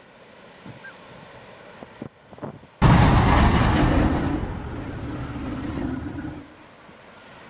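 A sudden, loud sound-designed giant-creature scream about three seconds in, lasting roughly three and a half seconds and easing off. It is built from a large table dragged across a floor, pitched down with reverb and mixed with other creature sounds.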